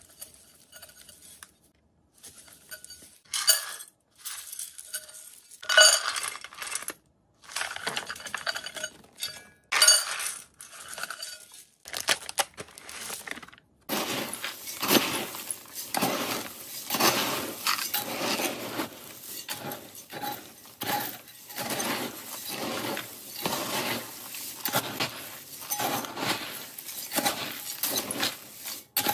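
Metal scoop pouring and stirring a large plastic tub of dry rodent food mix, the hard pellets, grains and seeds rattling and clinking. For the first half it comes in separate pours with short pauses; from about halfway it becomes continuous, very loud stirring.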